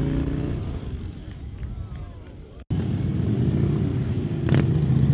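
Police Harley-Davidson V-twin motorcycles running at low speed. The engine sound drops in pitch and fades as the bikes ride away, then cuts off abruptly about two and a half seconds in. A louder, steady low engine sound from another bike close by follows, with a brief sharp click near the end.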